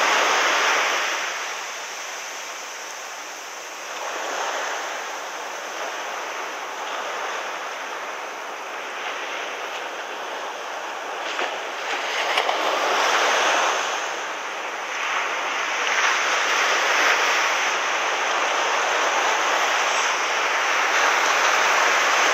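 Ocean surf breaking on a sandy beach and washing up the shore, the rush swelling and falling away wave by wave.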